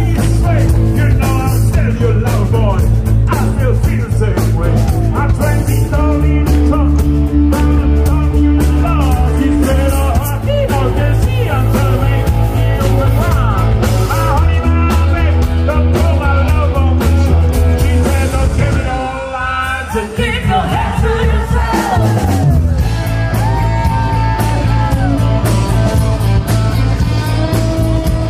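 Live rock band playing amplified, led by electric guitar, with a singing voice. The low bass notes drop out for a few seconds about two-thirds of the way through, then return.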